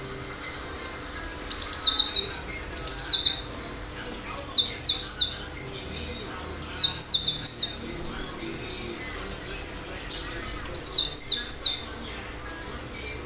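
Cinereous tit (gelatik batu) singing: five short phrases of rapidly repeated two-part whistled notes, each note sweeping down from high to lower, with pauses of one to three seconds between phrases.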